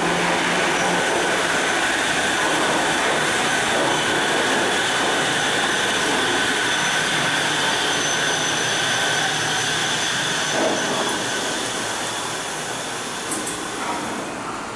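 Shonan Monorail suspended monorail train running into the station: a steady rumbling rush with a high whine over it, easing off near the end as the train slows to a stop.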